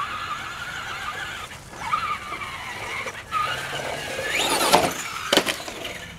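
Traxxas Rustler XL-5 RC truck's brushed electric motor whining as it drives, cutting in and out with the throttle and rising sharply about four and a half seconds in. Two sharp knocks follow near the end.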